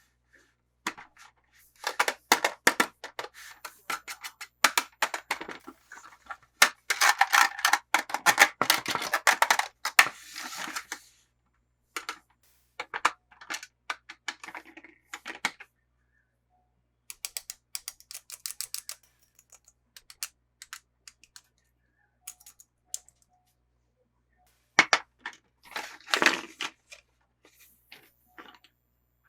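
Hands unboxing plastic toy packaging: quick runs of sharp clicks and crackles, densest over the first ten seconds, then sparser, with a quiet gap of several seconds before another short burst near the end.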